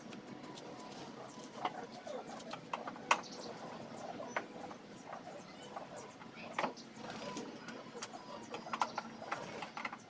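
Irregular clicks and taps of a screwdriver working at the plastic top ring of a top-loading washing machine's tub, the sharpest about three seconds in.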